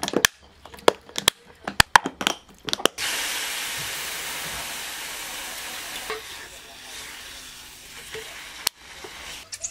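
Clicks and knocks of a glass food container's plastic lid being snapped shut. About three seconds in, a sheet of beef hits a hot stainless steel frying pan and sizzles loudly, the sizzle slowly dying down. There is one sharp knock near the end as wooden tongs turn the meat.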